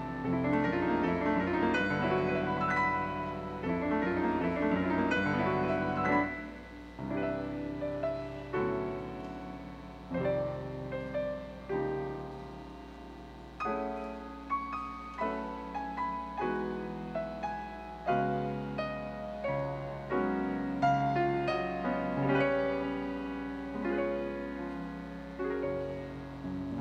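Grand piano playing: a busy passage of quick notes for the first several seconds, then single chords struck about once a second, each ringing and fading before the next.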